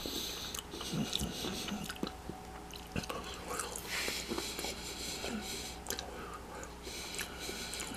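A man chewing a mouthful of air-fried pepperoni pizza snack roll: soft, irregular wet mouth sounds with small clicks.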